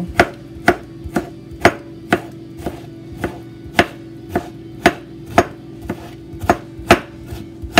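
Kitchen knife chopping diced tomato on a plastic cutting board: steady knocks of the blade on the board, about two a second.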